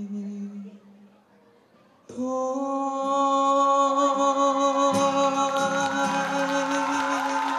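A male singer's voice through a microphone holds one long, loud, steady note. It starts suddenly about two seconds in, after a brief hush. About halfway through, audience cheering and whooping start to rise under it.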